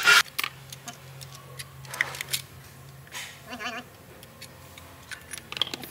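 Light metal clinks and taps as steel transmission clutch plates and gear parts are handled and fitted onto a shaft. A short loud burst of noise comes at the very start, and a brief warbling tone about three and a half seconds in.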